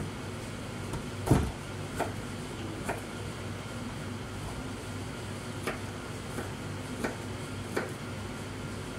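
Knife cutting carrot on a plastic cutting board: about seven sharp knocks at uneven spacing, the loudest about a second in, over a steady low hum.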